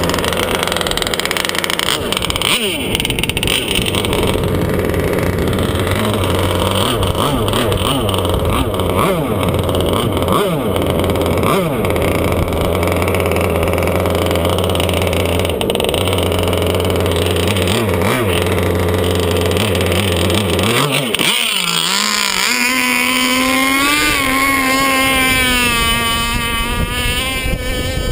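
Small gasoline engine of a gas-powered RC hydroplane idling steadily, then about 21 seconds in throttled up to a much higher, wavering pitch as the boat runs.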